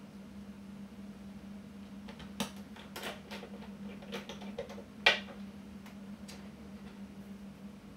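Small clicks and taps as fingers handle and press the parts of a disassembled Sony ILX-LR1 camera, a cluster of them in the middle with one sharper click about five seconds in, over a steady low hum.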